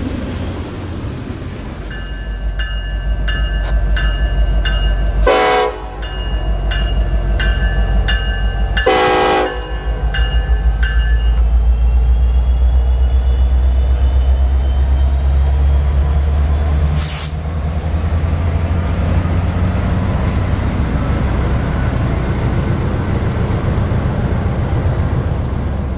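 CSX freight train's diesel locomotives passing with a heavy low rumble that swells from about ten seconds in. In the first half a grade-crossing bell rings in a steady repeating pattern, and two short horn blasts sound about five and nine seconds in.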